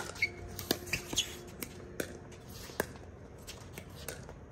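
Pickleball rally: paddles striking the plastic ball, with ball bounces on the hard court, heard as sharp pops. The pops come close together in the first second or so, then further apart.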